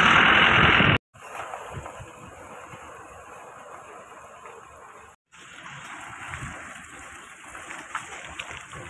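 A heavy truck running with its wheels in deep mud makes a loud, rushing noise for about a second before it cuts off suddenly. After that come the quieter wet, splashy sounds of vehicle tyres rolling through mud and puddles on an unpaved road, broken by another short cut near the middle.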